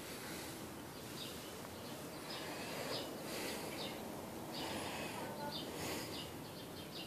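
Small birds chirping repeatedly in short notes, with bursts of soft rustling noise.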